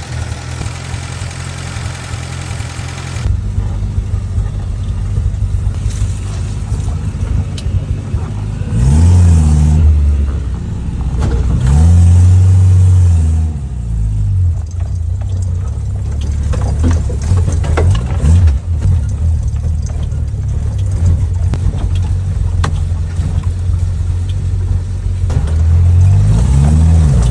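Suzuki Katana's swapped-in Toyota 5K four-cylinder engine running at idle and revved up several times: briefly about nine seconds in, for a longer spell a few seconds later, and again near the end.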